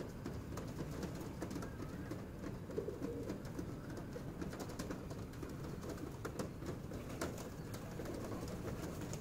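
A flock of feral rock pigeons cooing in a low continuous murmur, with scattered short sharp taps as they peck at food on the concrete.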